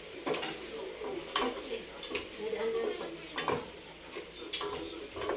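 Chicken feet being stirred in a hot pan: a cooking utensil scrapes and knocks against the pan several times over a steady sizzle.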